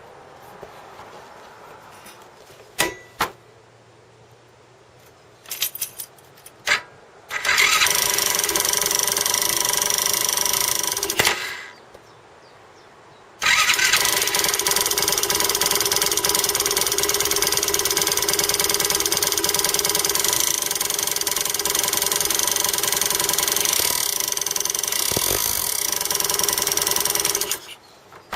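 Skyteam Dax 125cc single-cylinder four-stroke engine. After a few clicks it starts, runs about four seconds and stops, then starts again and runs steadily for about fourteen seconds. It carries the suspicious noise that appeared after the magneto flywheel was taken off.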